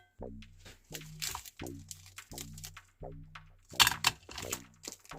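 Meat grinder crunching through a Milky Bar chocolate bar: a regular pulse about every 0.7 s, with crackling and cracking bursts, the loudest about four seconds in.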